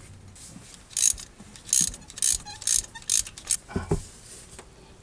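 Ratchet wrench on a spark plug socket and extension, clicking in about six short bursts roughly half a second apart as it is worked back and forth to run a new spark plug down.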